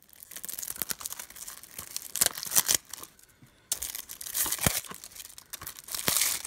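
Plastic shrink wrap being torn and peeled off a Blu-ray case, crinkling and crackling in irregular short bursts, loudest a couple of seconds in and again past the middle.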